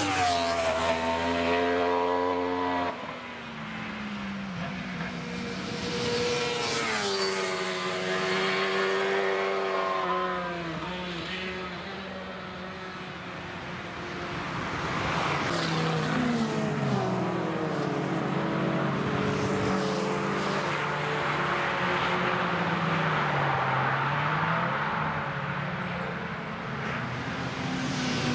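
Cars driving past one after another at track speed, their engines rising and falling in pitch as each goes through the bend. The first pass drops off suddenly about three seconds in, and others follow.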